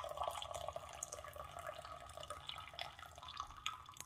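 Brewed tea pouring in a thin stream from a handleless bowl-shaped teapot into a glass pitcher, trickling and slowly tapering off towards drips as the pot empties.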